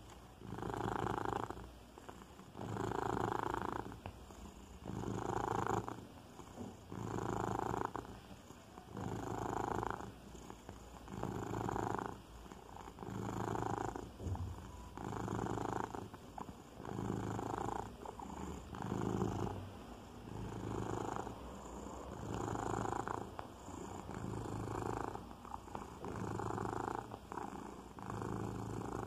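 Domestic cat purring close up while suckling a blanket, the purr swelling and fading about every two seconds with its breaths.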